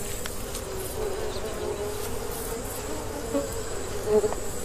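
Honeybees buzzing around honeycomb, a steady hum that wavers a little in pitch.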